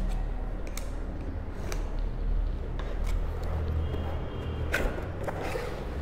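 Box cutter slitting the packing tape on a cardboard shipping box, then the box lid being lifted open, with several sharp clicks and scrapes of handling over a low steady hum.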